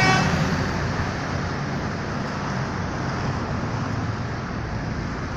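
The last note of a multi-tone telolet bus horn cuts off just after the start, leaving steady road-traffic and engine rumble.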